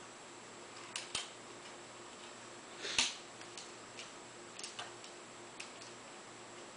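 Irregular small clicks and taps of plastic laptop parts being handled, the sharpest about three seconds in, as the display assembly is fitted and its wires are routed through the hinge.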